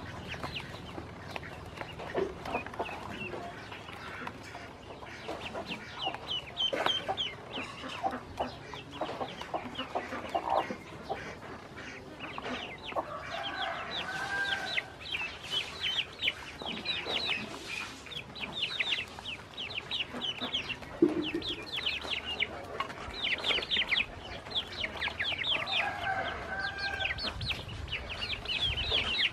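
Ducklings peeping nonstop in rapid, high, falling chirps, with a few lower clucking calls from a hen mixed in.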